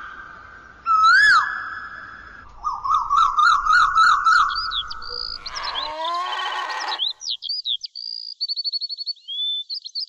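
Birdsong: a loud whistled call that rises and falls about a second in, then a run of rapid warbling notes, and in the second half thin high chirps and a fast trill.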